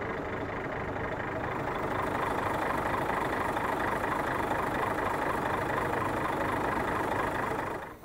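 Mack truck's diesel engine idling steadily. It stops abruptly near the end.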